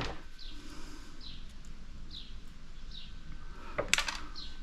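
A bird chirping over and over, short notes that slide downward, about one a second. Near the end come a few sharp metallic clicks of pliers and small metal clips being handled.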